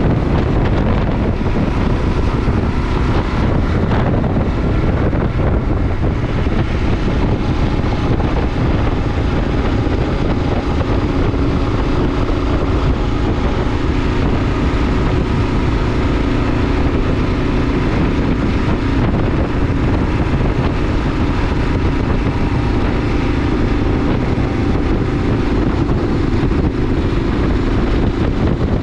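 Wind rushing over the microphone over the 2022 Kawasaki KLR 650's single-cylinder engine running steadily at cruising speed.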